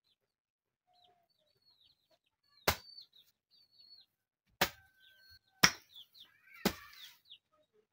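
Hand hoe striking into the soil four times, sharp impacts with the last three about a second apart. Faint bird chirps between the strikes.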